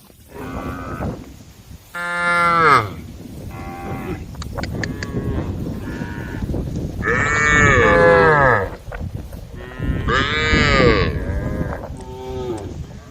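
A herd of cows mooing, many long calls overlapping, with three loud ones about two, seven and ten seconds in.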